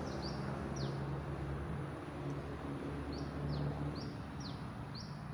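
A bird calling over and over: short high chirps, some sweeping down and some sweeping up, in quick runs with a pause of about two seconds in the middle, over a steady low hum.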